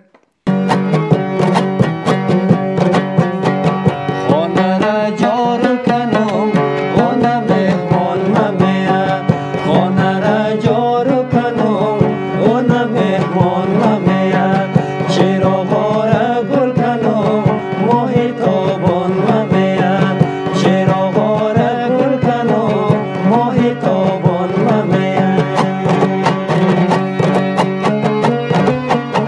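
Background music: rapid hand-drum beats over a steady drone, with a winding melody, starting abruptly about half a second in.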